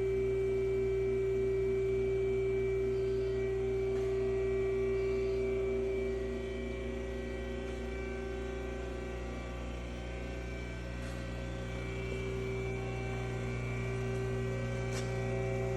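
Haas ST-20 CNC lathe running with a steady electric hum and whine made of several fixed tones. The hum eases slightly about six seconds in, and there are a couple of faint ticks later on.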